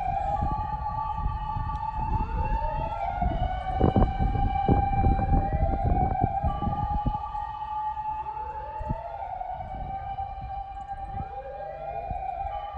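Several emergency vehicle sirens sound at once and overlap out of step. Each rises to a held high wail and falls away again, over a low rumble.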